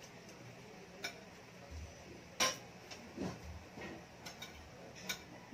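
Scattered clinks and taps of spoons and forks against plates and dishes at a meal table, the loudest about two and a half seconds in, with a few soft knocks between them.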